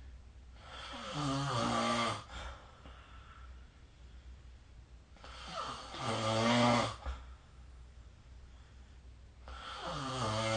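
A person snoring in a slow, regular rhythm: three loud, buzzing snores about four and a half seconds apart, each lasting under two seconds, the last running on past the end.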